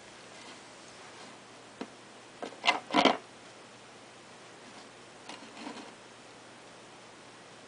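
Plastic food container with a snap-on lid knocking and rattling on a tile floor as a rabbit nudges and noses it. A single tap comes first, then a loud burst of knocks, and a few softer knocks come later.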